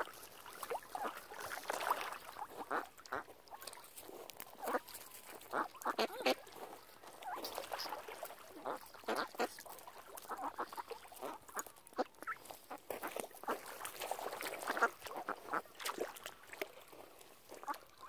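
Ducks quacking: many short, irregular calls overlapping one another, some louder than the rest.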